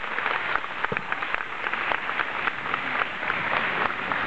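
An audience of children applauding: many hands clapping irregularly.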